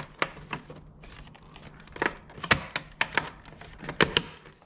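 Plastic side-mirror cover being handled and pressed back onto a Toyota 4Runner mirror: a string of sharp plastic clicks and knocks at uneven intervals as it snaps into place.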